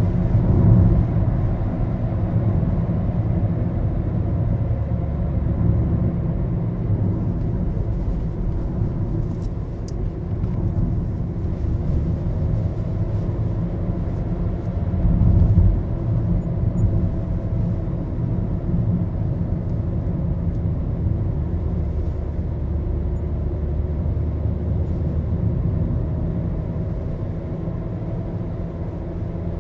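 Maruti Suzuki Baleno heard from inside the cabin while driving: a steady low rumble of engine and road noise, its engine note drifting slowly. It swells louder briefly about halfway through.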